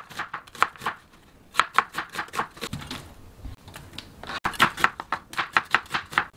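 Kitchen knife slicing an onion on a plastic cutting board: quick runs of chops, about four or five a second, in three bursts with short pauses between.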